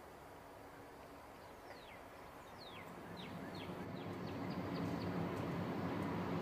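A bird calls a run of about ten short, falling whistled notes that come faster and faster. From about halfway through, the low rumble of an approaching Amtrak passenger train led by a P42 diesel locomotive grows steadily louder and becomes the loudest sound.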